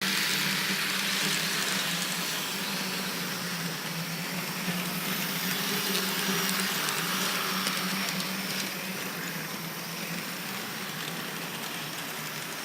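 H0-scale model tram running on layout track: a steady electric motor hum with wheel and gear running noise and a few faint clicks.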